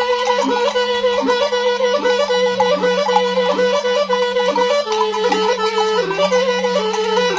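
Shepherd's kaval, an end-blown folk flute, playing a traditional melody that mostly holds one note with quick repeated dips, over a steady low drone.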